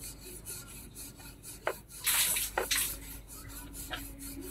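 Wooden rolling pin rolling dough back and forth on a rolling board: quick repeated rubbing strokes, a few a second, with a louder, longer stroke about two seconds in.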